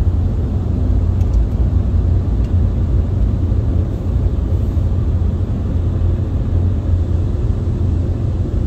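Ryko Voyager II rollover car wash running alongside the car with its foam side brush spinning, heard from inside the car's cabin as a steady low rumble.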